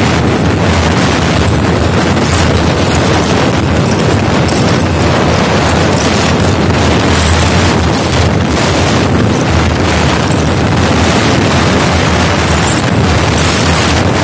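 Loud, steady wind rush buffeting the microphone of a Bajaj Pulsar NS160 motorcycle held at about 120 km/h, its top speed, with the single-cylinder engine running flat out underneath.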